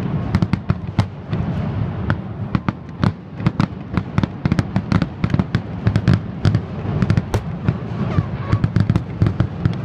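Aerial fireworks shells bursting in a rapid barrage: many sharp bangs a second over a continuous low rumble.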